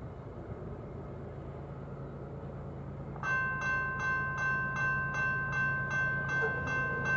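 Low, steady hum of an approaching freight train's diesel locomotives. About three seconds in, a railroad grade-crossing warning bell starts ringing, about three strikes a second, as the crossing signals activate for the train.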